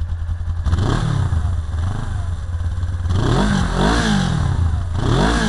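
1999 Suzuki GS500E's air-cooled parallel-twin engine idling and revved in four quick throttle blips, each rising and falling back to idle: once about a second in, twice in quick succession past the middle, and once near the end.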